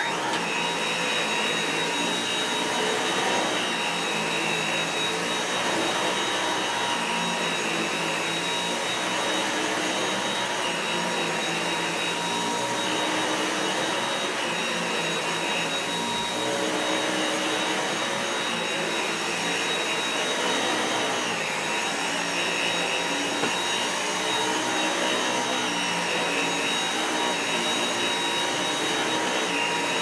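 Dyson V8 Total Clean cordless stick vacuum running on standard suction with its floor head on carpet: a steady high whine with rushing air, its tone shifting slightly now and then as the head is pushed back and forth.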